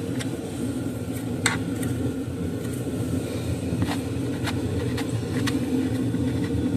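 A steady low background rumble, with a few sharp separate clicks of hand tools on metal as bolts on the engine's intake are loosened.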